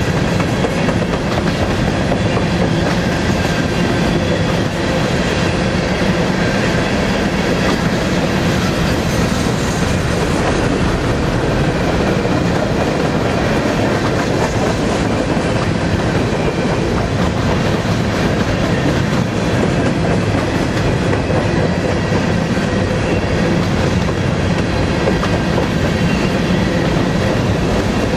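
Empty covered hopper cars of a freight train rolling past, a steady, unbroken clatter and rumble of steel wheels on the rails.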